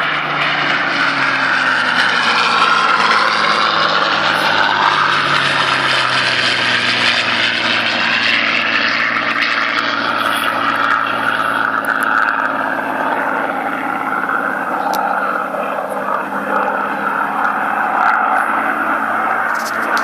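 Supermarine Spitfire piston engines droning as the aircraft fly past, the engine note dropping in pitch in the first couple of seconds as one goes by, then holding a steady drone.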